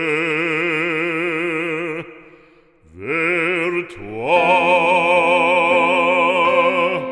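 Music track of operatic singing: one voice holds long notes with wide vibrato, breaks off about two seconds in, then slides up into another long held note.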